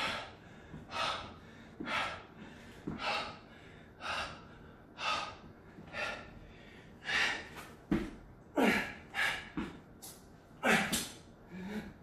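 A man breathing heavily after burpees: loud exhales about once a second, coming faster and louder in the last few seconds as he starts the next rep.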